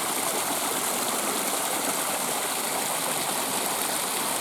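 Woodland stream running, a steady, even rush of water.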